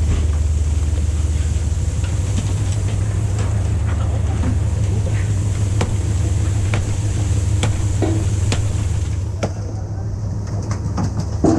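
Fishing boat's engine running steadily with a deep hum, while irregular sharp clicks and knocks sound on board, a louder knock near the end.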